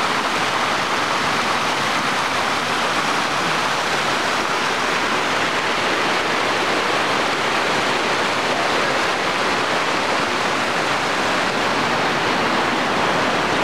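Fast-flowing, silt-laden mountain water rushing over rocks: a steady, even rush of water with no breaks.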